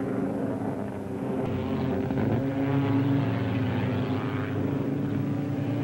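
Sprint car engines running at speed on a dirt track: a steady drone that shifts a little in pitch as cars go by.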